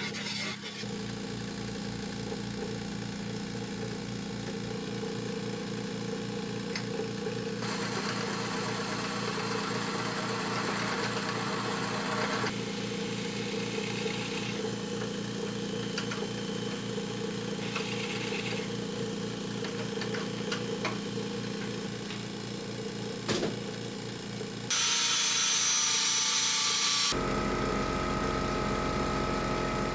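Wood lathe running with a steady motor hum while a gouge cuts the foot off an epoxy resin bowl, with scraping cutting noise that comes and goes. Near the end a louder hiss lasts about two seconds, then a different steady hum follows.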